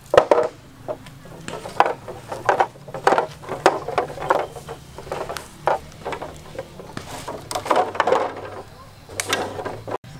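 Hollow bamboo poles knocking and clattering against each other as they are laid and shifted by hand on a bamboo raft frame, in irregular knocks, sometimes several in quick succession.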